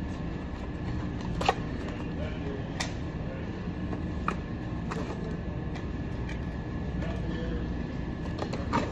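Products being taken from a cardboard box and set onto store shelving: a few short, sharp clacks and knocks spread a second or more apart, with light box rustling, over a steady low background hum.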